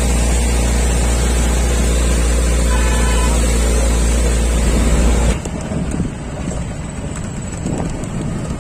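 A steady low rumble with hiss. About five seconds in it changes abruptly to a vehicle's engine and road noise with wind on the microphone while riding along a road.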